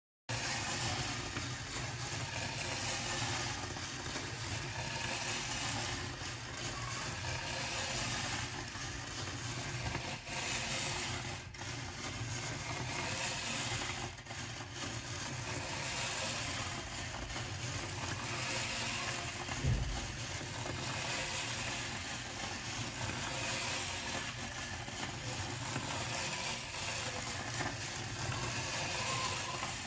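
Simple electromagnetic train (a dry-cell battery with neodymium magnets on its ends) running steadily round inside a bare copper-wire coil, a continuous mechanical running noise that starts abruptly. One low thump about two-thirds of the way through.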